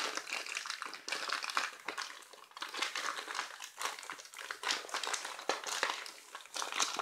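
Plastic mailer bag crinkling and rustling as hands pull and twist at its corner to open it: an irregular run of crackles, easing off briefly about two seconds in.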